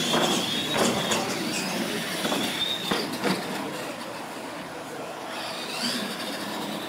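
Battery-powered R/C monster truck racing on a concrete floor: a high-pitched squealing whine that rises and falls, with a few sharp knocks in the first half.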